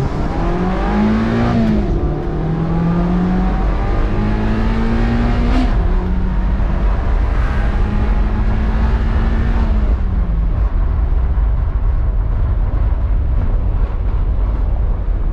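A Mazda NC Miata's 2.0-litre four-cylinder engine accelerating hard under full throttle. It rises in pitch, drops about two seconds in and rises again, drops again near six seconds and holds, then falls away around ten seconds: upshifts through the gears. Wind and road noise come steadily through the open top.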